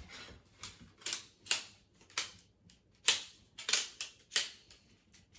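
Shock-corded camping cot support poles clacking as their sections are pulled out and snapped together: a string of sharp clicks, about two or three a second.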